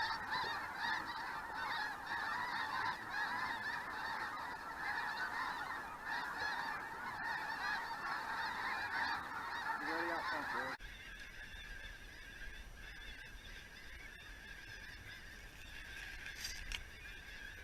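A huge flock of snow geese calling overhead, a dense continuous din of overlapping high honks. About eleven seconds in it drops abruptly to fainter calling over a low rumble.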